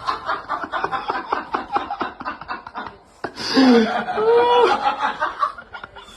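Someone laughing in rapid, repeated pulses for about three seconds, then a pitched, wavering voice that slides up and down in pitch.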